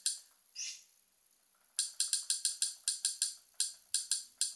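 Rapid run of sharp menu-navigation clicks, about five a second with a brief pause, as a list in the XBMC media-centre menu is scrolled through; a single click comes at the start.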